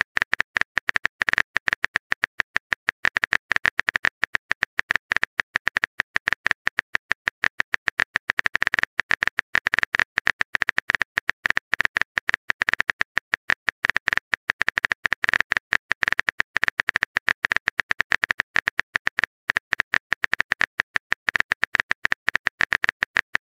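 Keyboard-typing sound effect: a fast, irregular stream of clicks, the typing sound played while a chat message is being written.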